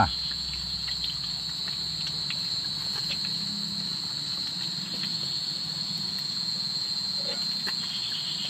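Chorus of night insects, one steady high-pitched drone, over a faint hiss with scattered light clicks.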